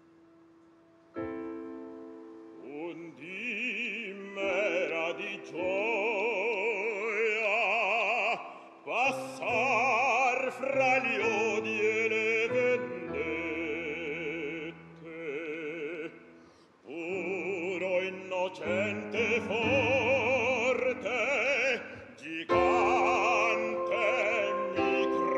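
Operatic bass-baritone singing with wide vibrato over piano accompaniment. The piano sounds alone for a couple of seconds before the voice comes in.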